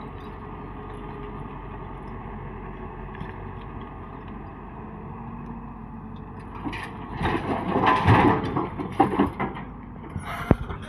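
Building demolition: heavy machinery running steadily, then about seven seconds in a loud spell of crashing and crunching as masonry breaks and falls, with a few sharp knocks near the end.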